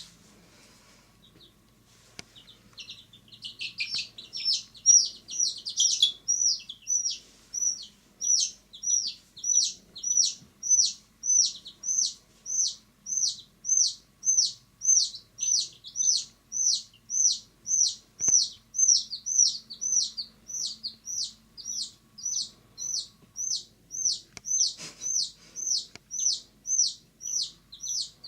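Domestic chicken chick peeping loudly and insistently. After a quiet start comes a quick flurry of chirps, then a steady run of high, downward-sliding peeps at about two a second.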